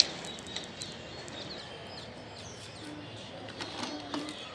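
Birds chirping in the background, several short high calls scattered throughout, with one sharp click right at the start.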